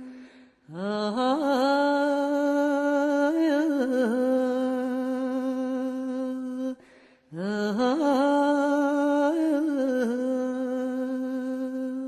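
A solo voice singing two long, drawn-out notes with no words and no accompaniment. Each note slides up into the pitch, wavers in a short turn, then is held steady, with a brief break between them about seven seconds in.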